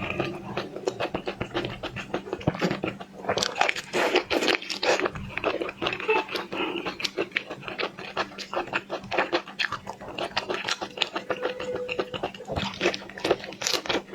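Close-miked eating sounds: dense, irregular crunching, clicking and wet smacking as seafood is chewed.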